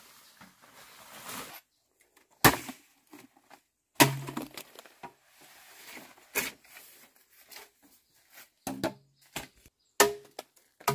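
Machete chopping bamboo: about six sharp strikes a second or two apart, several with a short hollow ring from the bamboo tube. Leaves and brush rustle at the start.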